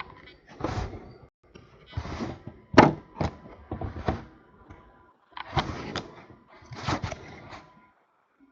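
Topps Chrome baseball cards being handled by hand: a run of short sliding swishes and clicks as cards are slid off a stack and set down, about one every second or so.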